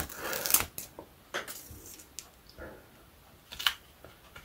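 Paper release liner being peeled off the adhesive border of an ostomy wafer, heard as light crinkling with a scatter of small clicks.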